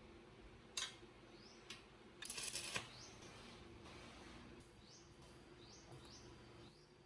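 Faint short rising bird chirps, repeated every second or so, over quiet background hiss. A sharp click comes just under a second in, and a brief scraping rasp, the loudest sound, lasts about half a second a little past two seconds in.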